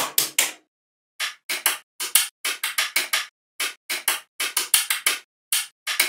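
Small magnetic balls clicking together as they are snapped into place, in quick runs of several clicks with short silent pauses between.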